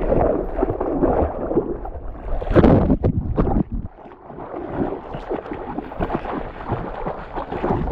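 River water splashing and gurgling close to the microphone, with wind buffeting it; the splashing is loudest about two and a half to three and a half seconds in.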